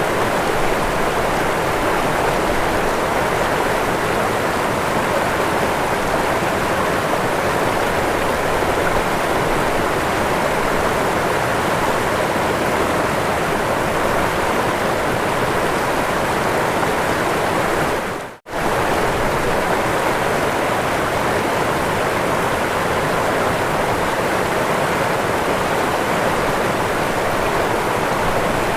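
Waterfall: water pouring and splashing in a steady, even rush. It cuts out abruptly for a split second about eighteen seconds in, then resumes unchanged.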